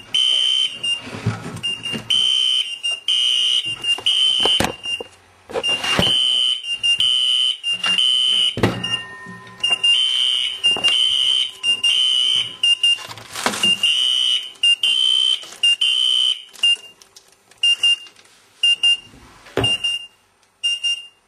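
Fire alarm sounders from two linked alarm panels going off together, including a Simplex T-bar and a Wheelock NS horn: a loud, high-pitched electronic tone pulsing on and off, with sharp clicks and knocks mixed in. Near the end the pulses grow shorter and the sound dies away.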